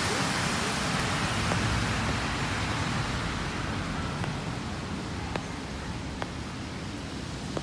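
Street noise on a wet road in light rain: a steady hiss, loudest at first and thinning after about four seconds, with a few faint clicks near the end.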